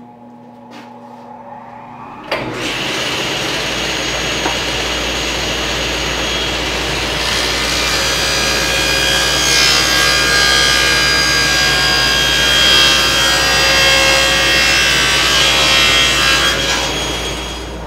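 SawStop table saw starts up about two seconds in and runs, its tilted blade ripping a bevel along a plywood strip. The cut is loudest through the middle and eases off a second or so before the end as the piece clears the blade, with the saw still running.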